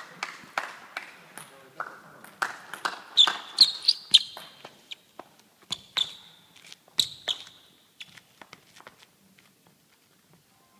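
Table tennis ball clicking and bouncing irregularly in a sports hall, each hit ringing briefly; the clicks thin out and stop about eight seconds in.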